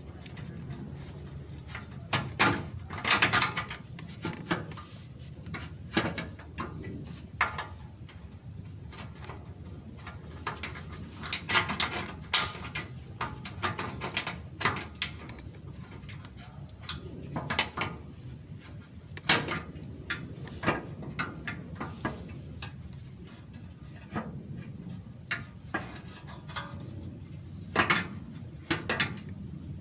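Irregular clicks and clinks of hand tools and nuts on metal, some in quick clusters, as the nuts holding an engine cover are fitted.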